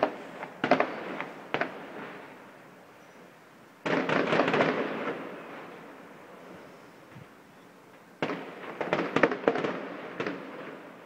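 Distant fireworks display: a few sharp bangs in the first couple of seconds, then a sudden cluster of crackling bursts about four seconds in and another about eight seconds in, each dying away over a couple of seconds.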